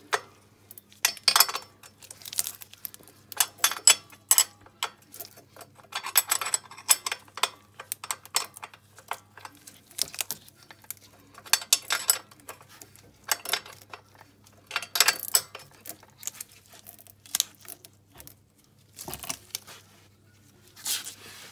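Hand tools and metal fittings clicking and clinking in irregular clusters as the bolt holding a 125 cc ATV's chain guard is tightened.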